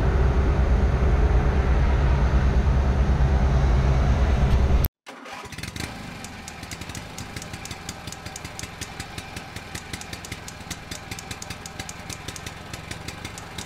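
Tadano crane's diesel engine running steadily, heard from inside the operator's cab. It cuts off suddenly about five seconds in, and a quieter engine-like sound with a rapid even ticking follows.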